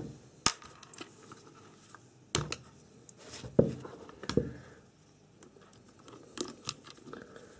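Handling noise while undoing a plastic appliance housing: a few separate clicks and short knocks from a screwdriver and the plastic base of a milk frother as its Phillips screws are worked loose.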